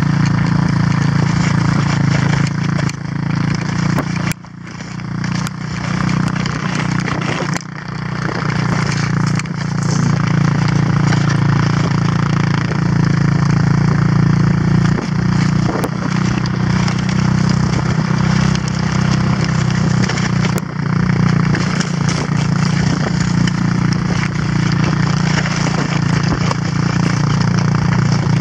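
Quad (ATV) engine running at a steady pitch while towing sleds through snow, under a constant rushing noise, with a brief dip in loudness about four to eight seconds in.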